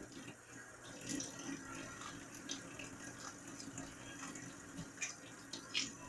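Kitchen faucet running a thin stream into a stainless steel sink as sweet peppers are rinsed under it, with a few light knocks and splashes.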